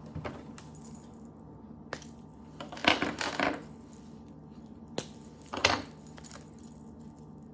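Small hard pieces of a gingerbread kit and its packaging rattling and clicking as they are handled, in a few short bursts, the loudest about three seconds in and again near six.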